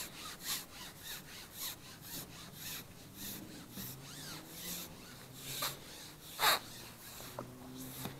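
Carbon fishing pole being shipped back while a hooked skimmer is played, sliding and rubbing through the hands in a regular rasping stroke about twice a second, with one louder scrape about two-thirds of the way through.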